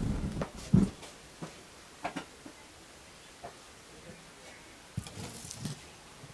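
Scattered light knocks and clinks of tableware being handled on a table, with a louder low thump just under a second in and a short cluster of clatter around five seconds in.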